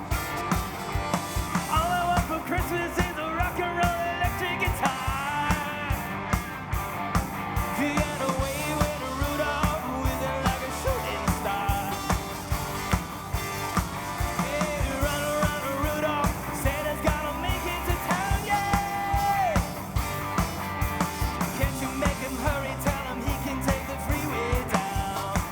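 Rock and roll song with a singer over a band and a steady drum beat.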